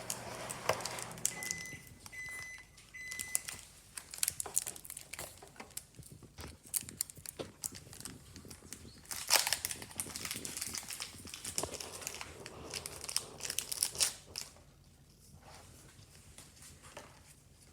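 A foil-wrapped Pokémon card booster pack crinkling and tearing as it is ripped open, in irregular crackly bursts that die down a few seconds before the end.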